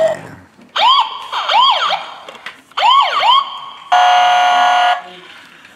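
Electronic sound effects from a toy police motorcycle's button box, played through its small speaker: two short bursts of rising-and-falling siren whoops, then a steady buzzing horn tone lasting about a second, near the end. Loud.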